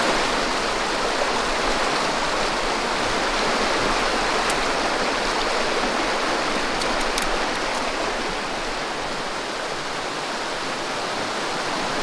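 Mountain creek rushing over rocks in a steady, loud wash of water noise, with a few faint ticks about halfway through.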